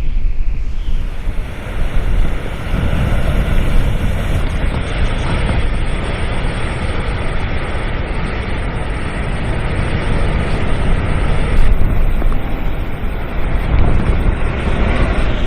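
Strong wind buffeting the microphone: a loud, gusting rumble that swells and dips throughout.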